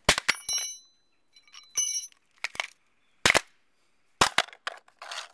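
Sharp knocks and clinks of a hammer striking a plastic AC adapter on a concrete slab, some eight blows spread over a few seconds. The first few carry a brief metallic ring.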